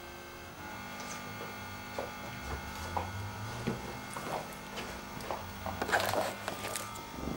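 Steady electrical hum, joined about half a second in by a faint motor whirr, with scattered light clicks and knocks as things are handled close by.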